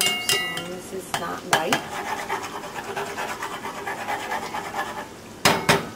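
A metal spoon scraping and knocking against a pot as empanadas are turned in hot frying oil, with a few brief ringing clinks near the start and two sharp knocks close together near the end. The oil crackles steadily underneath.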